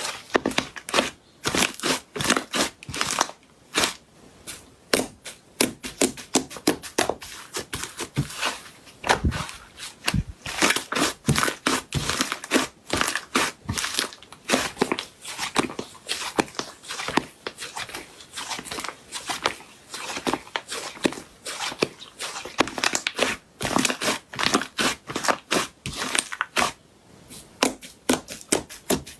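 Slime being squeezed and worked: a rapid, irregular run of sticky crackling clicks and pops.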